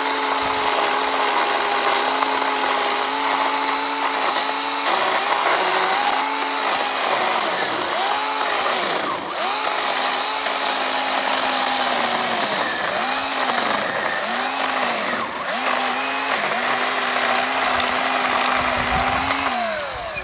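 Ryobi ONE+ 18-volt brushless cordless chainsaw cutting a thick log. Its electric whine holds steady at full speed, then dips and recovers again and again as the chain bites under load. It holds steady once more and winds down near the end.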